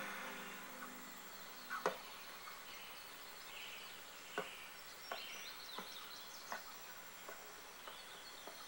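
Faint birdsong with several short, sharp taps of a football being juggled.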